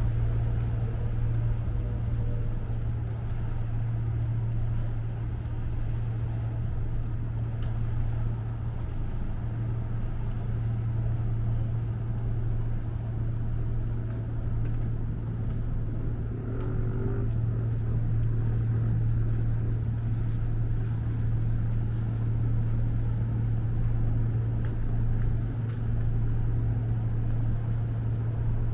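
Steady low drone of boat engines on the harbour water, unchanging in pitch, over a constant outdoor hiss.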